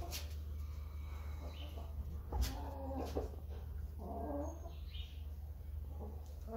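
Dark Brahma chickens giving a few short, low clucks, a couple of seconds in and again about four seconds in, over a steady low hum.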